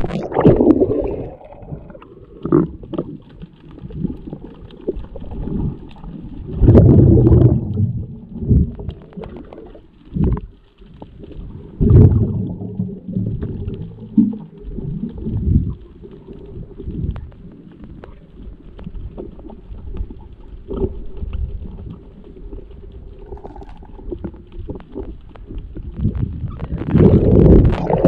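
Muffled underwater bubbling and rushing water around a diver's camera, coming in uneven louder surges. Near the end a louder surge of splashing as the camera comes up through the surface.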